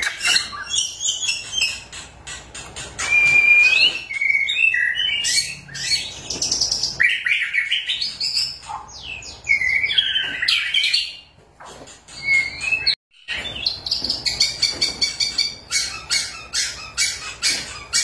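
Male white-rumped shama singing a long, varied song of clear whistles, slurred up-and-down glides and rapid repeated chattering notes, with a short pause about two-thirds of the way through.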